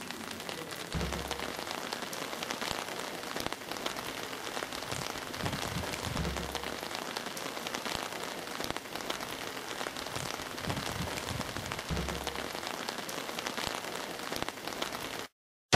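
Steady rain falling on a wet street, a dense hiss of small drops, with three short low rumbles: about a second in, around six seconds and around twelve seconds. It cuts off abruptly just before the end.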